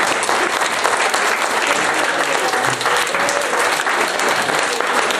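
Crowd applauding steadily, a dense clatter of many hands clapping, with a few voices faint under it.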